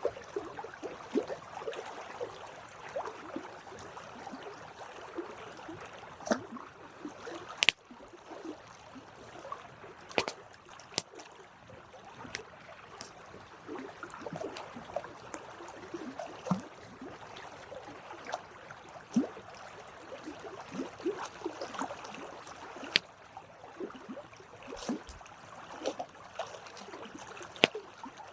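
Campfire burning, with a continuous soft hiss and irregular crackling, plus a few sharp louder pops, the loudest about eight seconds in.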